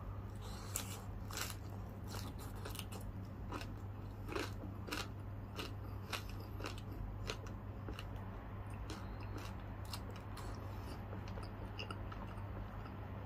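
Close-miked chewing of a mouthful of crispy deep-fried food, with irregular crunches scattered through, over a steady low hum.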